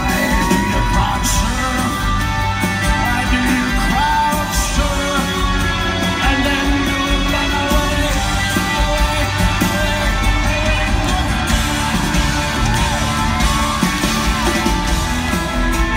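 Rock band playing live, with guitars and drums and a voice singing over them, heard from within the audience.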